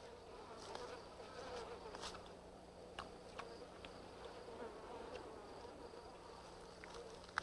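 Faint insect buzzing: a steady, wavering drone with a few soft clicks.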